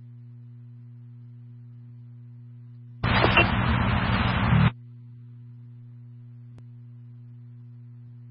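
Radio scanner feed between calls: a steady low electrical hum, broken about three seconds in by a burst of radio static lasting under two seconds as a channel opens with no voice on it, and a faint click near the end.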